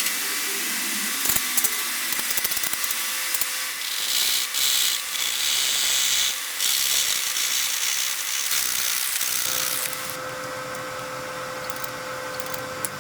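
Electric power tool working wood: a steady motor whine under a rough, hissing cut that grows louder from about four to seven seconds in and eases off near ten seconds.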